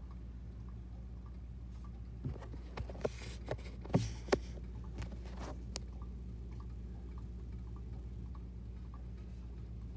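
A steady low hum, broken for a few seconds in the middle by a cluster of sharp clicks and knocks from the phone being handled and moved.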